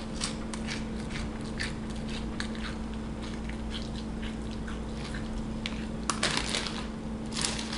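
Crunchy Sun Chips being chewed, a run of short crisp crunches, with a plastic chip bag rustling in bursts about six seconds in and again near the end.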